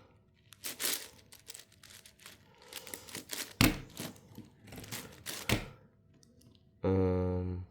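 10x10 Rubik's cube being turned by hand: irregular plastic clicks and clacks as layers are twisted. Near the end a loud, steady low hum lasts just under a second.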